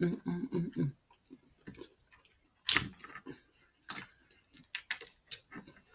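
Snow crab leg shells cracking and snapping as they are broken open by hand. There are sharp cracks about three and four seconds in, then a quicker run of snaps near the end, after a brief murmured voice in the first second.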